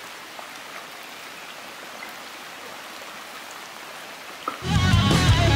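Steady hiss of creek water running among broken ice, with faint scattered ticks. About four and a half seconds in, loud electric-guitar rock music cuts in.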